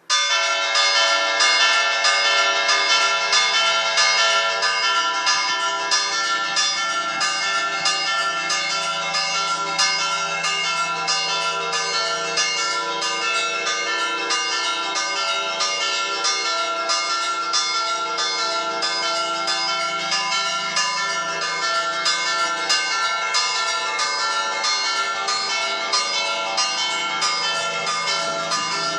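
Four church bells, tuned E, G, B and D-flat and swung on motorised half-swing headstocks, ringing together in a continuous festive peal. It starts suddenly and is loudest in the first few seconds.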